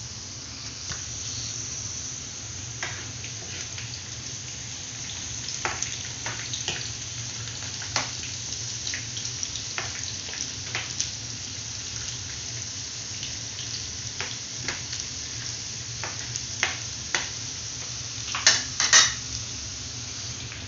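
Potato fries frying in hot oil in a pan: a steady sizzle with scattered pops and crackles, and a burst of louder pops near the end. A low steady hum runs underneath.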